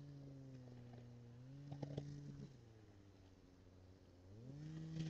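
An engine running faintly, its pitch stepping up and down several times as it revs and eases off, with a few light knocks about two seconds in.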